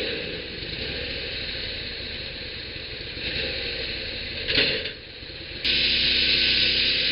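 Norwood portable band sawmill running, its engine and blade making a steady hiss and hum. A short loud burst comes about four and a half seconds in. About a second later the sound jumps suddenly louder, with a steadier engine note.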